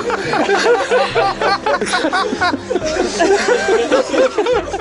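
Canned laughter: a laugh track of several people laughing and snickering together over background music, stopping at the end.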